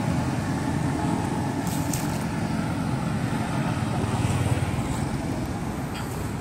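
Steady low rumble of wind on the microphone and road traffic, with no distinct engine note.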